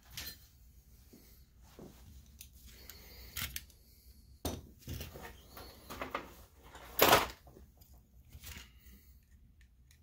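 Scattered clicks and knocks from handling a projector lamp ballast circuit board with a finned aluminium heat sink, while a small tool is worked at a drilled-out rivet in the heat sink. The loudest and longest knock comes about seven seconds in.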